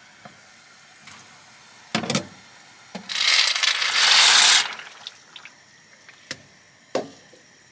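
Dry pasta spirals poured from a plastic container into a pot of water, a loud rattling rush lasting about a second and a half. A few sharp knocks of the pot lid and container come before and after.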